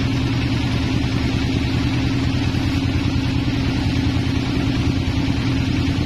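Band sawmill machinery running steadily with an even, unchanging hum, idling without cutting.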